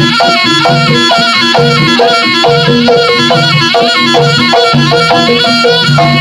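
Jaranan ensemble music: a shrill, reedy slompret (East Javanese shawm) plays a continuous melody over a steady repeating pattern of gong-chime and drum notes.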